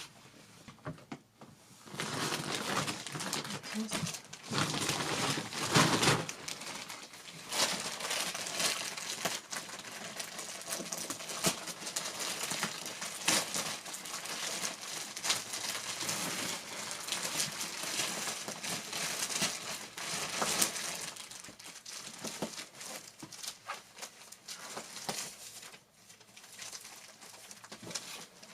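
Crinkling and rustling of something being crumpled and handled. It starts about two seconds in, is loudest around six seconds, and dies down after about twenty seconds.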